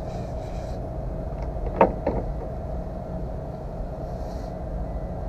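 Steady low rumble with a constant faint hum, and a sharp knock about two seconds in, followed quickly by a smaller one, as a fishing rod is lifted out of its rod holder on an aluminium boat.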